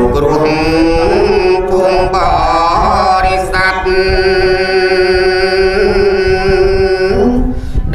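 A single voice chanting a Buddhist dharma verse in a melodic, sung style, with long held notes that waver slightly and glide between pitches.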